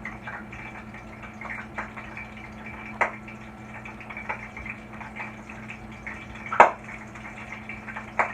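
Hot olive oil crackling and popping in a pot on the stove, many small pops with a few sharper clicks, the loudest about six and a half seconds in, over a steady low hum.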